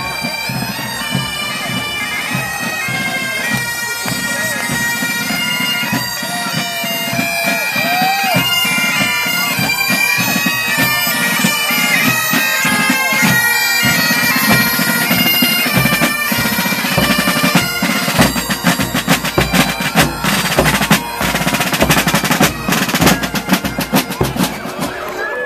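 Pipe band playing a marching tune on Great Highland bagpipes, the melody moving in steps over steady drones, with drums beating along. In the last several seconds the drumming turns dense and rapid.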